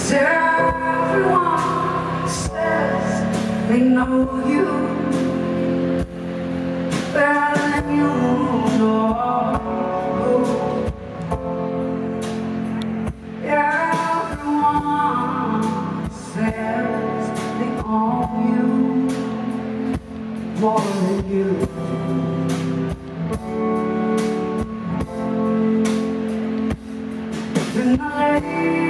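Live band music through a concert PA: a woman sings the lead into a hand-held microphone in phrases of a few seconds, over drums and sustained low accompaniment.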